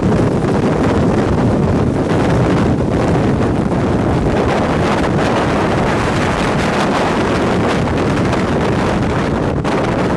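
Strong wind blowing over and buffeting the microphone: a loud, steady rush of noise without let-up.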